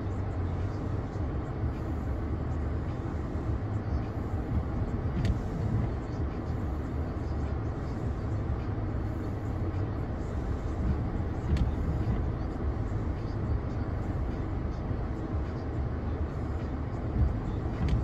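Steady vehicle road noise: a continuous low rumble with a fainter hiss above it, with a couple of faint clicks about five and eleven seconds in.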